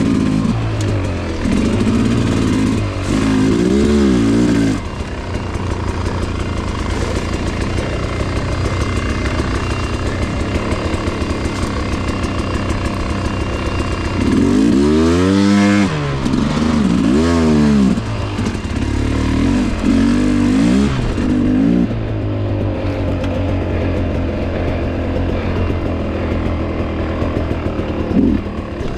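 Two-stroke dirt bike engine running on and off the throttle, with repeated revs rising and falling. The longest run of revving comes about halfway through.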